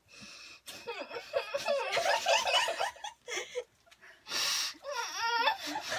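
Girls laughing hard in fits of giggles, starting about a second in, with a short breathy burst a little past the middle.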